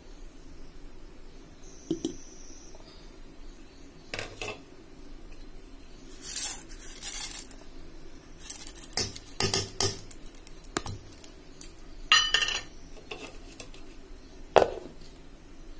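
Steel kitchen utensils clinking and scraping in scattered knocks as fried urad dal is tipped from a small steel bowl into a steel pan.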